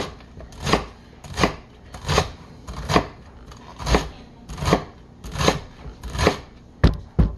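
Chef's knife chopping crosswise through a whole bunch of celery onto a wooden cutting board, a crunchy cut about every three-quarters of a second, about nine in all, followed by two sharper knocks near the end.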